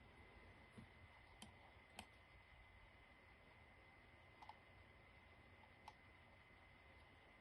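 Near silence with a few faint, scattered computer mouse clicks, about six over several seconds, over a faint steady high-pitched whine.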